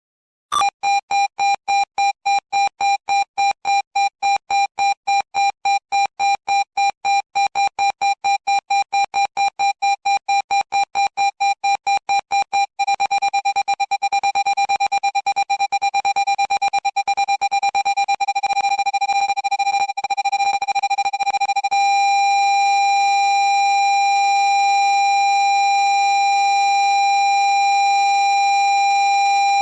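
Low-pitched parking sensor beep, pulsing about four times a second for an obstacle still far away. About halfway through the beeps speed up until they nearly run together as the obstacle gets close. Later they merge into one steady unbroken tone, which signals the nearest distance.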